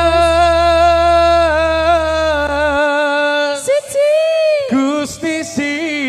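Live campursari singing through a PA: one voice holds a long steady note, then sings sliding, ornamented phrases. A low sustained accompaniment tone underneath stops about three seconds in.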